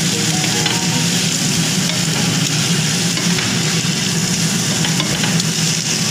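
White bitter gourd strips sizzling steadily in hot oil in a pan, stirred and tossed with a wooden spatula that makes small scraping ticks against the pan.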